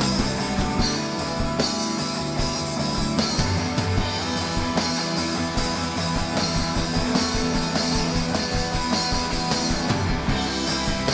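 Live rock band playing: electric guitars, bass guitar and a drum kit together, loud and dense, with a steady beat of drum hits.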